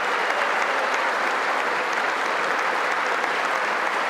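Large audience applauding steadily in a big hall, sustained clapping without a break.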